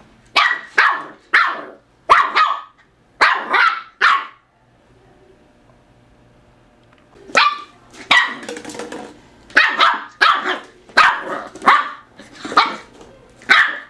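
Eight-week-old wheaten terrier puppy barking at an empty plastic water bottle, in quick runs of two or three short barks. The barking stops for about three seconds in the middle, then comes back as a longer string of barks.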